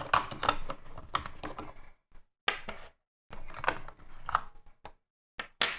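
Irregular small clicks and rattles of a plastic toy belt being handled: its battery cover being unscrewed and opened and the batteries being taken out. The clicking is dense at first, then comes in short clusters with pauses between.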